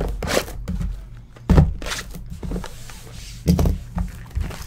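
Cardboard boxes of trading cards being handled and set down on a table: a few dull thuds, about a second apart at first, with quieter sliding and rustling between them.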